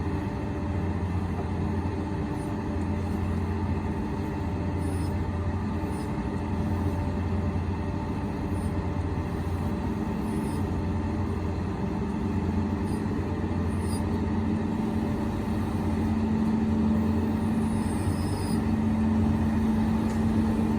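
A vehicle engine running steadily with a low hum, a little louder in the last few seconds, with a few brief faint high squeaks or rattles over it.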